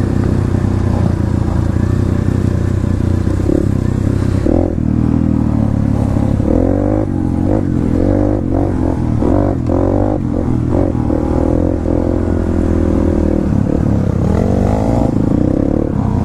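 Dirt bike engine heard from on the bike while it is ridden along a trail, the revs rising and falling as the throttle is worked, most of all in the middle stretch.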